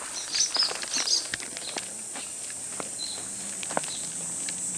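A steady, high insect drone, with scattered footsteps on a paved path. A few short, high chirps come in the first second.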